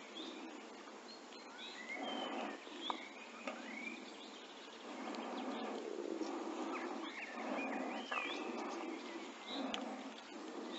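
Small songbirds chirping with short rising and falling calls, over several bursts of close rustling as a caught perch is handled and unhooked.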